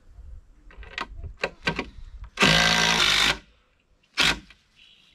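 Cordless drill-driver driving a long construction screw into a timber post: one run of about a second past the middle, then a short second burst, with a few clicks of handling before.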